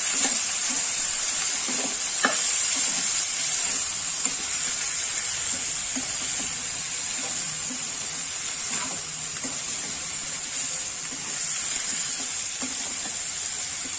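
Cauliflower florets, onion and green chillies sizzling in hot oil in a pan while being stirred with a steel spoon: a steady frying hiss with a couple of sharp clinks of the spoon against the pan.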